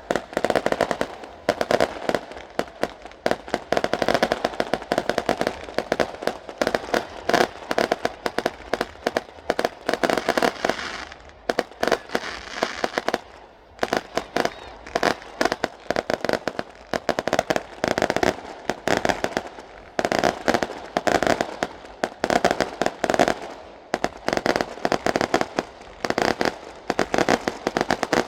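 Fireworks going off: a dense, continuous run of sharp bangs and crackling pops, thinning briefly about halfway through.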